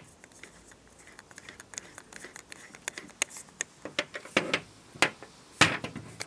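Small clicks, taps and scrapes of fittings being handled and fitted onto a pressure washer trigger gun by hand, with a few louder knocks about four to six seconds in.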